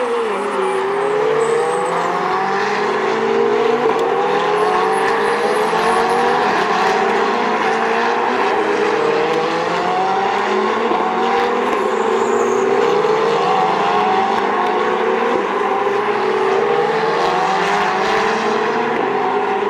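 Several Ferrari 488 and 458 Challenge race cars' V8 engines at full throttle, their overlapping pitches climbing again and again as they accelerate up through the gears past the listener.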